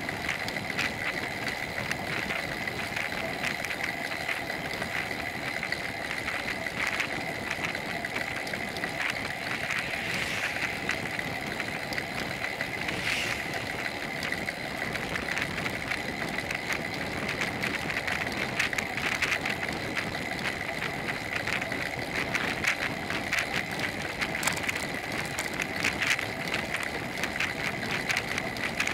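Bicycle riding along an asphalt road, heard through a camera mounted on the bike: steady road and wind noise with a constant fine rattle and a steady high whine.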